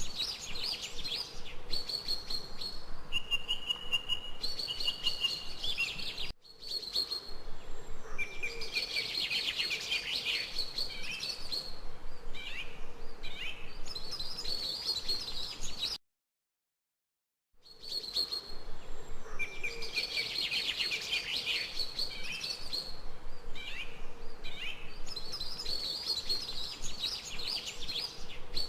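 Songbirds chirping and singing with fast, high trills and short repeated calls. The sound drops out completely for about a second and a half just past the middle, then the birdsong resumes.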